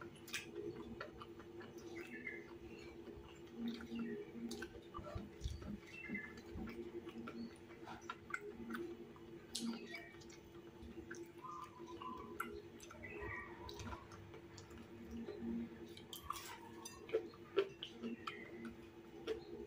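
A person eating crispy fried tahu bakso with rice: quiet chewing with scattered light clicks and taps of utensils on a plate, over a steady low hum.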